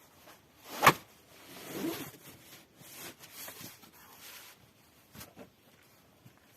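A single sharp knock, like something hard set down or struck, followed by a short rustling swish and a few light clicks and taps.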